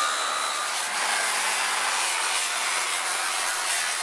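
Angle grinder with a cut-off disc cutting through forklift tine steel: a steady, high grinding hiss.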